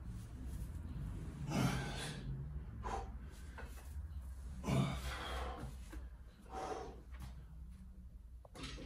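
A man breathing hard while squatting under a loaded barbell. A few loud, forceful exhalations come a couple of seconds apart, one per repetition.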